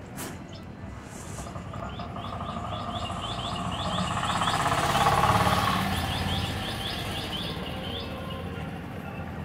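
A passing vehicle's noise swells to a peak about halfway through and fades again. Over it a bird chirps in a long, quick series, about five chirps a second.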